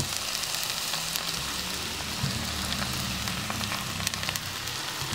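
Halved red chicory sizzling as it fries flat side down in hot olive oil in a frying pan: a steady hiss with fine crackles.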